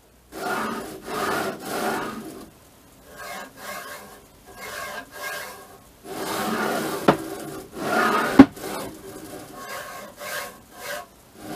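Bouts of rubbing and sliding strokes, about half a second each, as a plywood 3D-printer bed carriage is worked back and forth by hand. Two sharp knocks come about 7 and 8.5 seconds in, the second the loudest.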